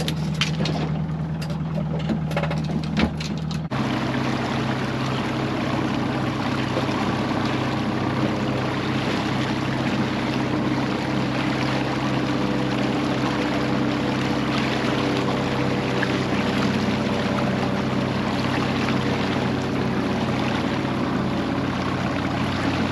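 A motorboat's engine running steadily at trolling speed with a steady low hum, water rushing and splashing along the hull. About four seconds in the sound changes abruptly and the water noise grows louder.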